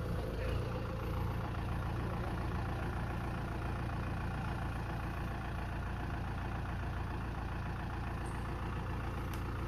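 Kubota M6040 tractor's four-cylinder diesel engine idling steadily.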